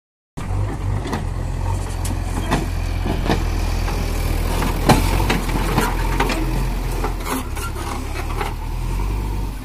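JCB backhoe loader's diesel engine running with a steady low note, with scattered sharp knocks and clanks, the loudest about five seconds in.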